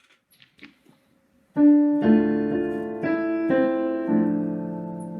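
A few faint clicks, then about one and a half seconds in a piano starts playing slow chords, each struck and left to ring and fade. It is the introduction to a sung chant.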